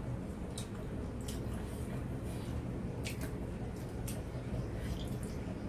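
People eating with their fingers: wet chewing and mouth sounds with a few short, sharp clicks, over a steady low hum.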